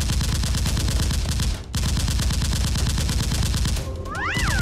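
Dubbed-in machine-gun sound effect: rapid automatic gunfire in two long bursts, with a brief break about a second and a half in. Near the end comes a short whistle that rises and then falls.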